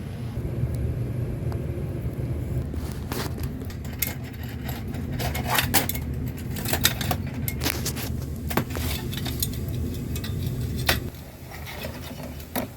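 Irregular metal clicks, clinks and scrapes as a gas water heater's thermocouple is worked hard to pull it free of its holder. Under them runs a steady low hum that drops away about eleven seconds in.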